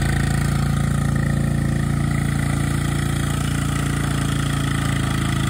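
Kawasaki UTV's engine running at a steady speed as it pulls a disc harrow through a field.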